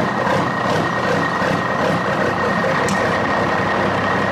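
Truck engine sound effect running steadily, with a thin high whine held over it.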